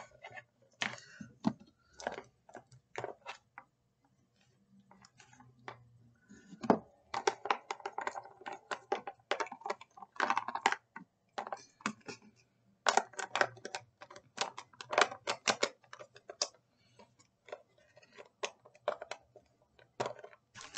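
Small rubber novelty erasers clicking and rattling against a clear plastic latch box as they are handled and packed back in, in irregular clusters of clatter with a brief lull early on.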